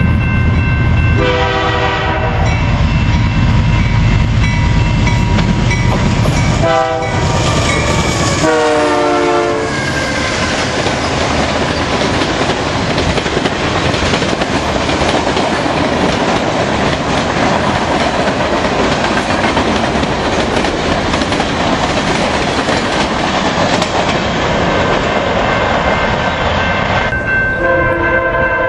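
CN diesel freight train: the locomotive's engine rumbles as it approaches, sounding its horn in three blasts, the last dropping in pitch as the locomotive goes by. The freight cars, including tank cars, then roll past with a steady clatter of wheels on rail. Another horn blast starts near the end.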